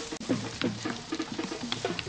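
Music carried by drums and other percussion, in a quick, even rhythm of short pitched strokes.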